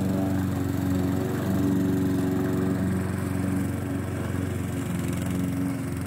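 A small engine running steadily at an even speed.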